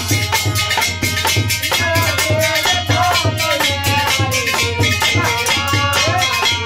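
Folk devotional bhajan music: a fast, steady drum beat with shaken, rattling percussion and a wavering melody line over it.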